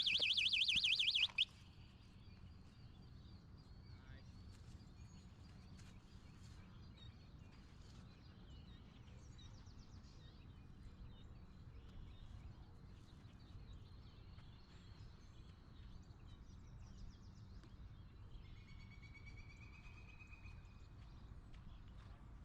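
A loud electronic alarm warbling rapidly up and down in pitch cuts off suddenly about a second and a half in. After it, faint birds chirp over a low outdoor rumble.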